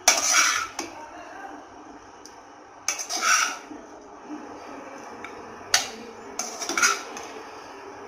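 Steel spoon scraping and clattering against a metal frying pan while scooping out cooked fried rice, in four short scrapes: one at the start, one about three seconds in, and two close together near the end.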